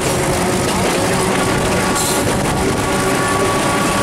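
Diesel locomotive running along the line, heard from beside its hood: a steady, loud rumble of the engine and the wheels on the rails, with faint steady tones running under it.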